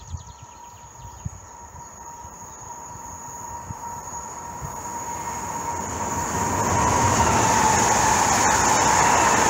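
Newag Impuls 31WE electric multiple unit approaching and passing on the line, its running noise growing steadily louder over about seven seconds, then staying loud as the cars go by.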